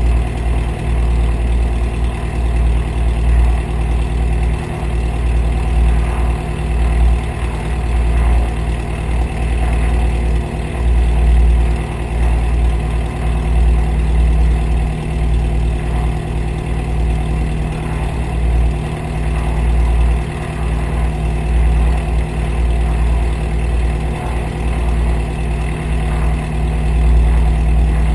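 Van's RV-7's piston aircraft engine and propeller idling steadily with the plane stopped on the ground.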